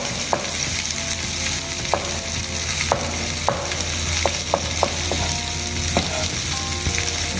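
Chicken strips sizzling as they fry in a hot oiled pan, a steady hiss, with irregular sharp knife taps on a cutting board as mushrooms are sliced.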